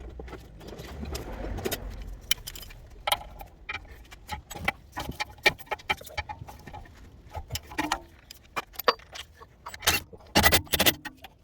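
Metal hand tools and brake parts clinking and clanking in a run of sharp knocks, loudest in a cluster near the end.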